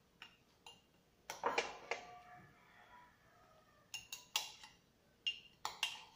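A spoon clinking and scraping against a ceramic mug while scooping out ice cream: a few light clinks, a quick run of clinks about a second and a half in with the mug ringing briefly after, then more clinks from about four seconds in.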